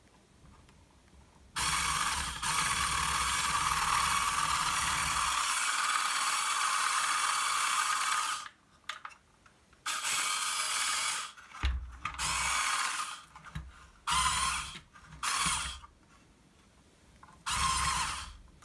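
Small electric drive motor in a 1/16-scale Bruder John Deere 9620RX rear track unit, converted to RC, whirring as it runs the rubber track on a bench test. It starts about a second and a half in and runs steadily for some seven seconds, then runs in a string of short bursts. On this side the track runs without rubbing.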